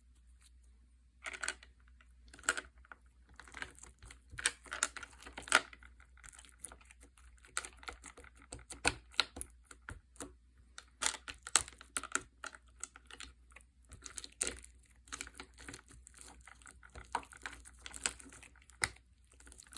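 Slime being squeezed and poked by hand, making a quick, irregular run of sharp clicks and crackles with short pauses between them.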